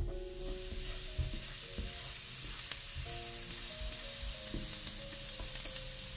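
Minced garlic sizzling steadily in hot olive oil in a frying pan while being stirred with a silicone spatula, with a couple of sharp pops from the oil. Soft background music plays underneath.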